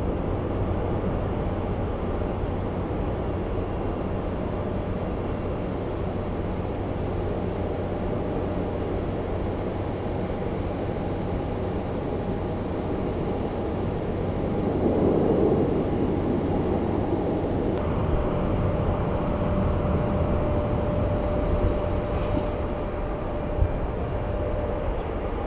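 Distant jet airliner engines at takeoff power: a steady rumble with a thin, high whine running over it. The sound swells about halfway through, and a second whine of another jet on the runway joins later.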